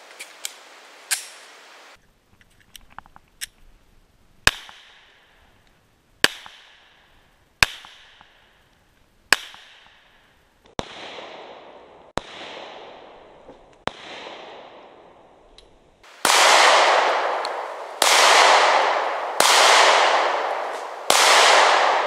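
Glock 43 9mm pistol fired in slow single shots, about a dozen reports spaced one to two seconds apart, each trailing off in an echo. The last four shots are louder, with longer tails.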